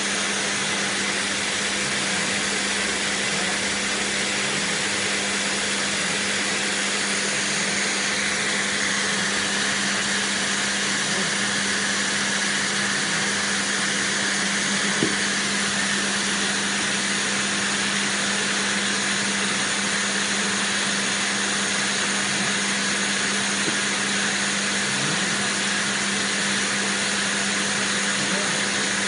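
Canister vacuum cleaner running steadily: a constant motor hum under an even rushing hiss, unchanged throughout, with one small click about halfway through.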